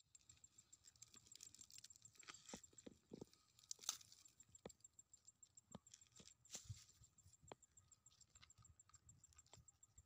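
Faint, scattered crackles and taps of a ripe pineapple's rough rind being handled and squeezed apart by hand.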